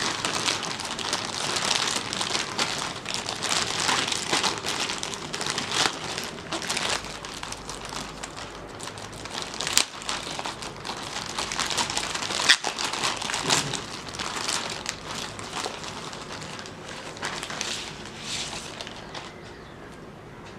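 Shipping package being opened by hand: steady crinkling and rustling of the packaging with many small clicks, two sharper snaps about ten and twelve seconds in, dying down near the end.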